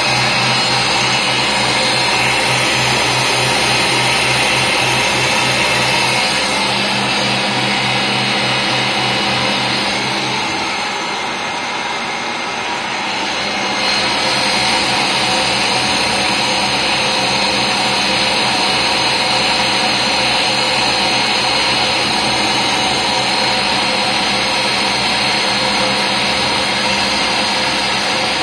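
Milling machine cutting a metal rod with a small end mill under flood coolant: a steady machining noise with a low rhythmic pulse. It drops a little quieter for about three seconds some ten seconds in, then picks up again.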